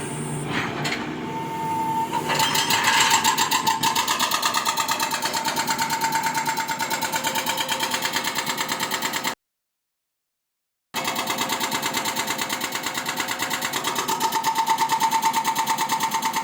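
A motor running steadily with a fast, even pulse and a steady high whine. It cuts out completely for about a second and a half after about nine seconds, then carries on as before.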